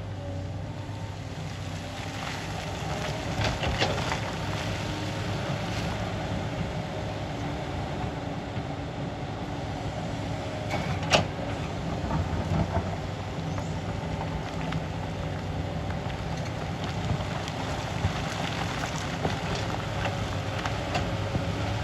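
A SANY crawler excavator's diesel engine and hydraulics running steadily under load as it digs and swings through loose rock, with a wavering whine over the engine hum. A few sharp knocks of the bucket against rock, the loudest about eleven seconds in.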